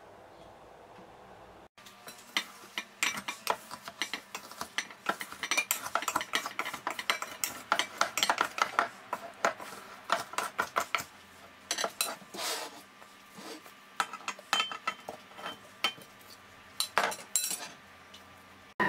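A metal spoon scraping and knocking against a glass bowl, digging out frozen ice cream. A rapid run of scrapes and clinks starts about two seconds in and thins to scattered knocks in the second half.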